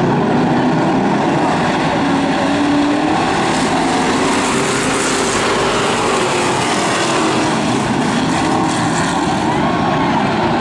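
A field of hobby stock race cars running together around a dirt oval. Their engines make a loud, steady, overlapping din of several pitches at once.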